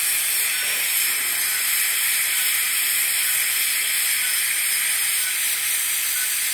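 High-speed dental handpiece running with a steady high hiss as its bur smooths the bone of a dog's carnassial tooth extraction socket before the gum is closed.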